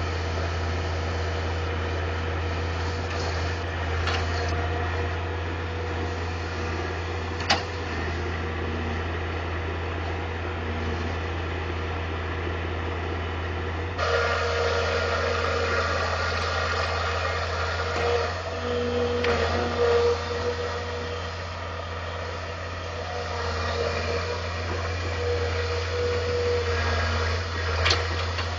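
Caterpillar 225 tracked excavator's diesel engine running steadily with a held mechanical whine, getting suddenly louder about halfway through as the machine works. A few sharp clanks come through, one early and a couple near the end.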